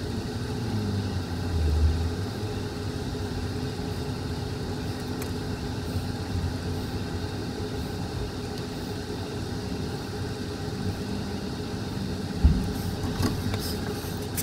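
Steady mechanical hum holding a few fixed tones over a low rumble, with a single dull knock about twelve seconds in.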